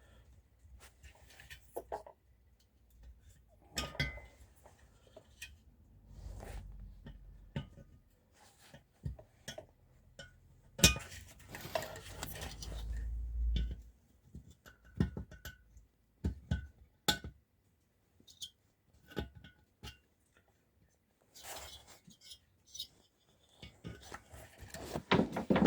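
Scattered clinks, clicks and knocks of hand tools and metal parts being handled while a diesel heater is taken apart, with a brief low rumble about halfway through.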